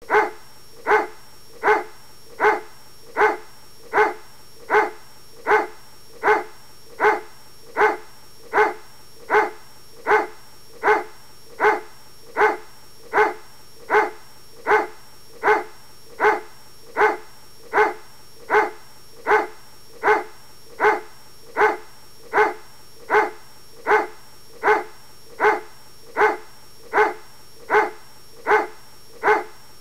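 A dog barking over and over at a very even pace, about four barks every three seconds.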